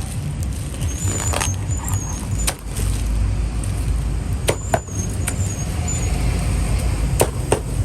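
Steady low rumble of passing road traffic, with a few sharp clicks and a faint high chirping that comes and goes.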